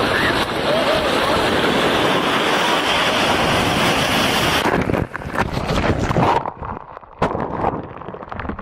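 Strong wind buffeting the microphone, with rushing sea noise. About five seconds in the sound changes abruptly to a patchier stretch of gusts that rise and drop away.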